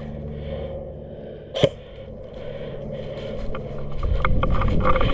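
A single sharp click about one and a half seconds in, then from about four seconds in louder scraping and rustling with many small clicks: clothing and gear rubbing on the head-mounted microphone as the airsoft player starts to move off.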